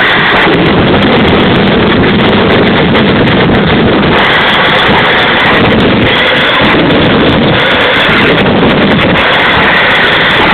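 Homemade gas turbine jet engine running flat out, a loud steady roar with a high whine over it. Its afterburner is lit and spitting flame at the exhaust.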